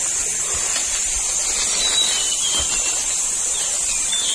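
A steady high-pitched hiss, with a few short falling chirps about two seconds in and again near the end.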